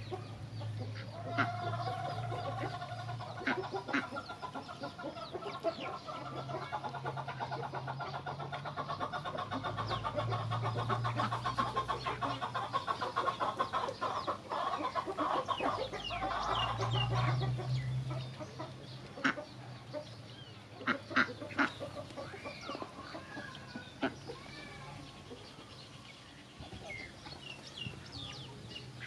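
Chickens clucking among a flock of domestic ducks feeding, with a rapid ticking through the middle and a low hum that comes and goes.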